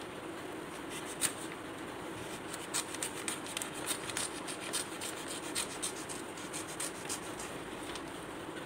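A sheet of craft paper rustling and crackling as it is handled, with a string of short, crisp, irregular crackles for about six seconds.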